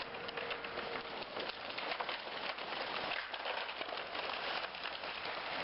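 A steady, dense patter of small ticks and crackles, like rain falling on leaves, with no single loud impact.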